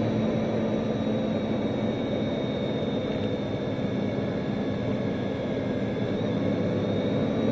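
Bugatti Veyron's quad-turbocharged W16 engine and tyre noise heard from inside the cabin while cruising steadily: an even rush with a faint high whine running through it.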